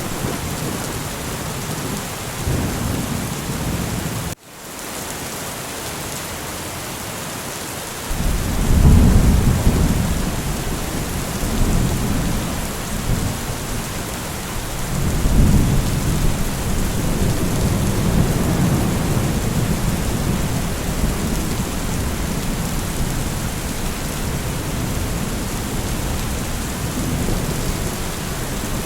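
Rain falling steadily in a thunderstorm, with rolling thunder rumbling low about eight seconds in and again around fifteen seconds. Just after four seconds in, the sound briefly cuts out and fades back in.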